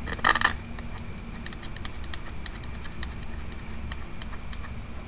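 Small metal parts clicking and tapping against an aluminium motorcycle carburetor body as it is fitted together by hand: a short, louder rattling scrape just after the start, then a string of separate sharp clicks.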